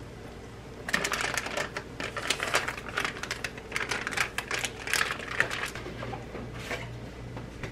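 Foil cheese wrapper being crumpled and handled: a quick, irregular run of small crackles starting about a second in and thinning out after about six seconds.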